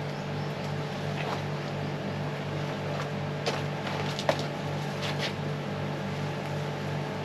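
Steady low mechanical hum of a running motor, with a few light clicks and rustles near the middle as a potted plant is handled.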